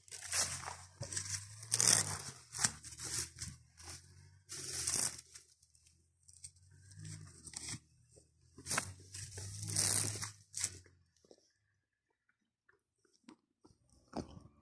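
Dry grass crunching and rustling in repeated bursts, stopping about eleven seconds in.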